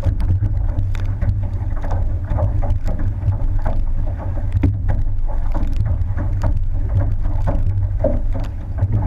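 Outrigger canoe paddled at race pace: the crew's paddles splash into the water in a steady rhythm as the hull rushes along, over a heavy wind rumble on the microphone.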